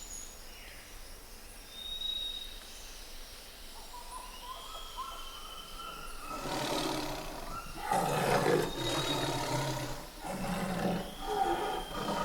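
Bengal tiger growling and roaring in several rough, deep bursts starting about halfway through, with short pauses between them. Faint short bird chirps come before them.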